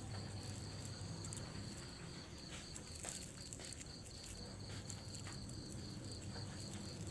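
An insect chirping steadily, a faint high pulsing trill at about four pulses a second, over low rural background noise.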